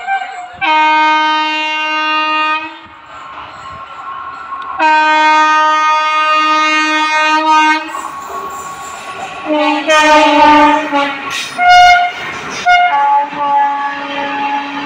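Indian Railways electric locomotive's horn sounding two long, steady blasts. Then several shorter horn toots at other pitches, mixed with the rumble and clatter of a train's coaches passing close.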